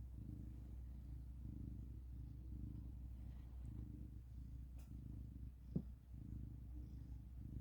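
Domestic cat purring softly, a low rumble that pulses in and out with its breaths. One short thump cuts in near the end.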